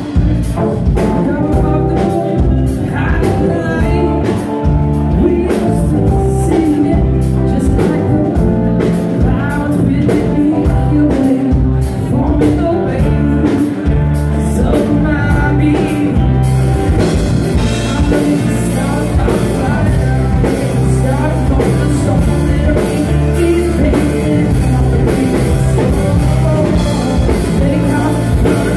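Live rock band playing amplified electric guitar, bass guitar and drum kit, loud and continuous; the top end grows brighter a little over halfway through.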